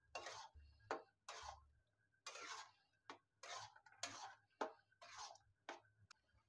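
Faint, rhythmic scraping of a metal spatula stirring thick vegetable mash in a steel kadai, about two strokes a second, with light clicks of metal against the pan.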